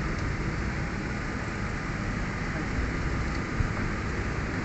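Steady background rumble and hiss, with one light knock about three and a half seconds in as the new radiator is worked into place.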